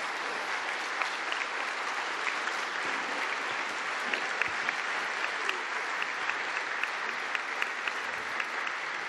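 Audience applauding steadily, many hands clapping at once, fading slightly near the end.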